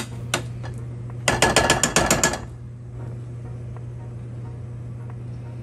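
Two single sharp clicks, then a quick, even run of about ten ratchet-like clicks lasting about a second, over a steady low hum.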